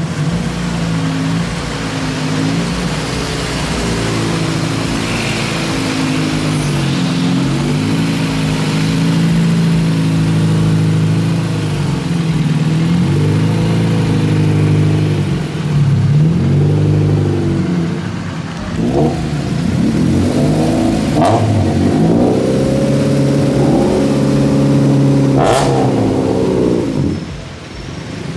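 Honda Civic car engines revving and accelerating, the pitch rising and falling again and again. A longer, higher steady run late on drops away near the end, with a few short sharp clicks.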